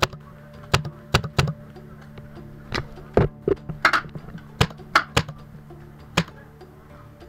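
Paintball markers firing at close range: about a dozen sharp pops at irregular intervals, some in quick pairs.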